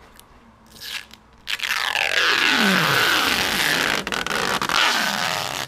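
Blue protective plastic film being peeled off the lens of a new 30-inch LED light bar: a loud scraping, crackling peel, starting about a second and a half in and lasting some four seconds, with squeaky tones that slide down in pitch.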